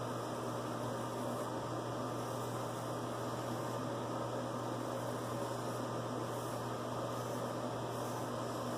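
Steady low hum with an even hiss of background noise, unchanging throughout; no separate razor strokes stand out.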